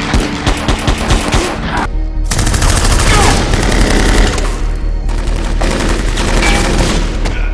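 Rapid, continuous gunfire mixed with loud music, with a short break about two seconds in.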